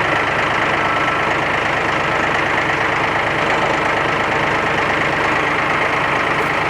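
A vehicle's engine running steadily at idle, a dense, unchanging sound with a fast low pulse.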